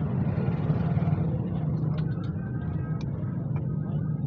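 A car running with a steady low rumble, and a few short light clicks or knocks scattered through it.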